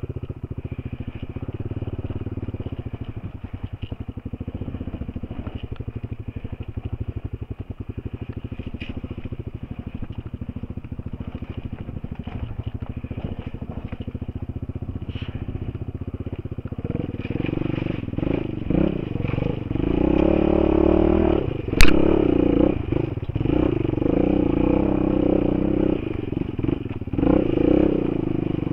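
Enduro motorcycle engine running at low, even revs off the throttle for the first stretch, then louder and more varied as the throttle opens and revs rise and fall from about two thirds of the way in. A single sharp knock about 22 s in is the loudest sound.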